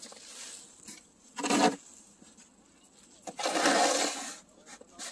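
Snow shovel scraping wet, slushy snow along an asphalt driveway: a short scrape, then a longer, louder scrape lasting about a second.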